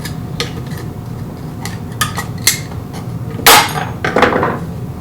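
Flat-blade screwdriver clicking against the metal mounting strap of a washing-machine water pump as the strap is pried out of its keyhole mount, with a louder metallic clank about three and a half seconds in and another just after.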